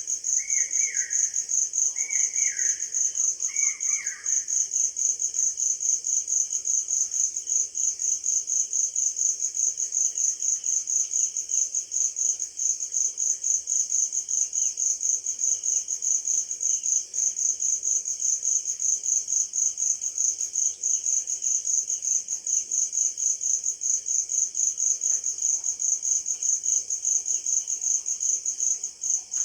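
Insects chirping in a steady, fast, high-pitched pulse throughout. A bird gives three short falling calls in the first few seconds.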